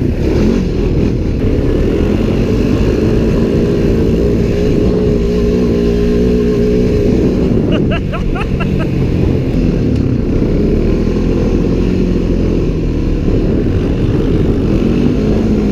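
Honda four-wheeler (ATV) engine running under way, its pitch rising and falling as the throttle changes, over heavy wind noise on a helmet microphone.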